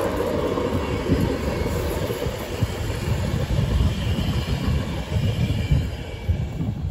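Passenger train coaches rolling past on a curved track: a steady rumble of wheels on rail that eases off near the end as the last coach goes by.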